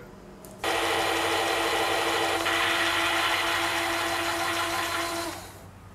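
Simulated tank engine sound from the built-in speaker of a remote-control model Tiger tank: it comes on suddenly about half a second in, runs steadily, then fades out near the end as the tank is switched off.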